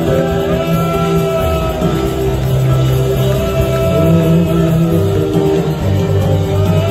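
Live worship band playing a slow song, with electric guitar and bass guitar over held chords and the bass notes changing every second or so.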